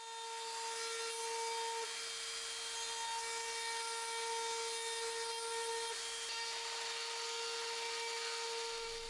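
Small handheld rotary tool running at a steady high speed, a constant whine with a grinding hiss as its fine bit works into the metal ferrule and wooden end of a knife handle.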